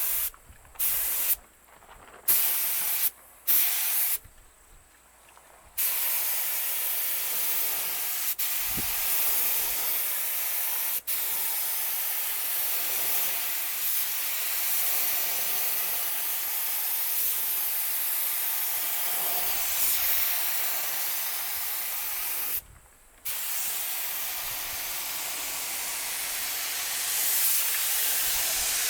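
Compressed-air paint spray gun spraying primer. It hisses in several short trigger bursts over the first six seconds, then sprays steadily, with one brief stop about 23 seconds in.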